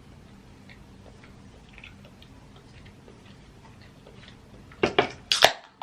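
Faint scattered clicks and small handling sounds, then a quick run of three or four loud knocks about five seconds in.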